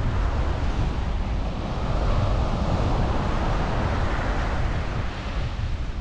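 Small sea waves breaking and washing up a sandy beach, a rush that swells from about a second and a half in and fades near the end. Wind rumbles on the microphone.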